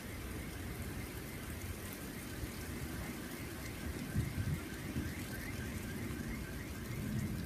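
Steady rushing noise of rain as a thunderstorm comes in, with a few louder low thumps about four seconds in.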